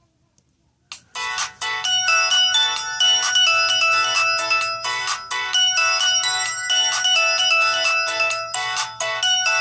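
A Samsung E2121B ringtone played through a Sony Ericsson W595's loudspeaker: an electronic melody of short, repeating notes that starts just after a click about a second in.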